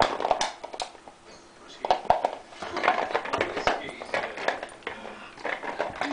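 A Schipperke chewing and pawing at a capped bottle as she works to get the cap off: a busy run of sharp clicks, crackles and knocks from the bottle and cap.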